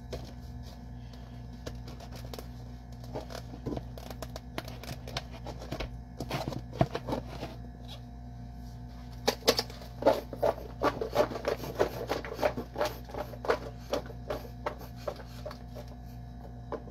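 Little smokies cocktail sausages knocking around inside a lidded plastic food container as it is shaken. Scattered clicks and knocks at first, then a fast, even clatter for about five seconds from roughly the middle.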